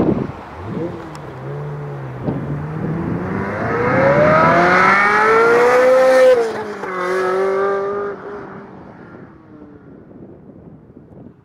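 A sports car's engine accelerating past, its pitch climbing for several seconds and dropping suddenly at a gear change about six seconds in, then fading as the car drives away.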